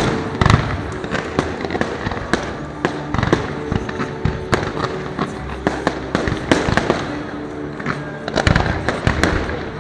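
Fireworks display going off in rapid succession: many sharp bangs and crackles, with a dense, loud cluster near the end, over background music.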